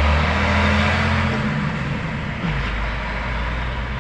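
Vehicle engine running with road noise, a steady low hum whose pitch shifts about halfway through.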